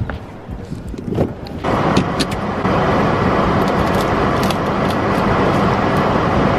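Steady noise of a car running, heard from inside the cabin, setting in sharply just under two seconds in, with a few light clicks over it.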